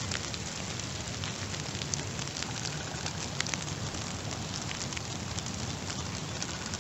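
Steady rain falling on clover and wet ground: an even hiss dotted with many small, sharp drop ticks.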